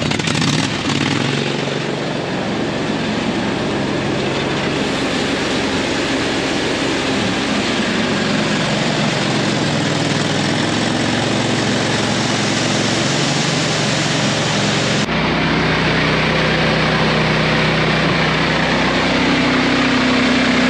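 Engine of a GrainBelt portable belt conveyor running steadily under load while it loads grain, with a steady rushing noise over it. The sound changes abruptly about fifteen seconds in.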